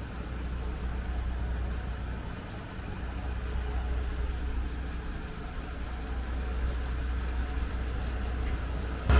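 Diesel engine of a KiHa 125 railcar running with a low, steady hum, growing slowly louder.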